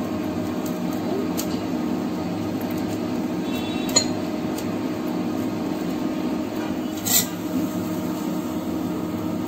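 Steady hum of an induction cooktop heating a cast iron pan of adai batter. There is a single sharp clink about four seconds in, and a short scrape of a metal spatula on the pan a little after seven seconds as the adai is turned.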